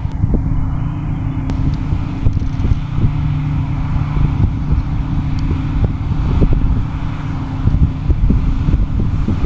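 Heavy diesel harvest machinery running steadily at work, with a constant low engine tone and a scatter of rattles and knocks.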